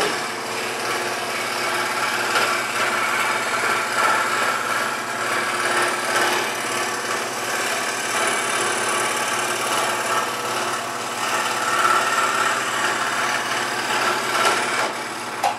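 WEN 3921 16-inch variable-speed scroll saw running, its blade cutting an interior cut through a thin wooden board: a steady motor hum under the blade's rasping strokes. It stops at the very end as the cut is finished.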